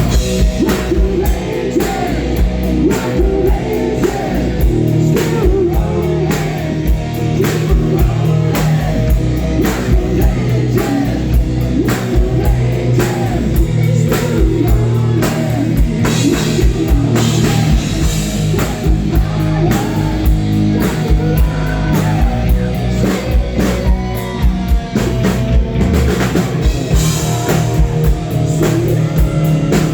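Live rock band playing loudly, with drum kit, guitar and singing over a steady driving beat.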